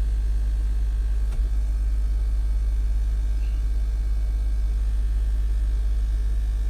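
Steady low drone inside a Jeep Wrangler's cabin, with one faint click about a second and a half in.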